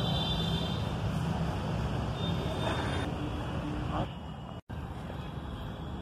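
Steady outdoor background rumble, like distant road traffic, with faint voices. It cuts out for a moment partway through and comes back a little quieter.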